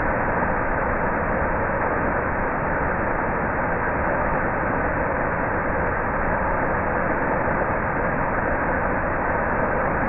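Waterfall pouring over a rock ledge into the pool below: a steady, unbroken rush of falling water.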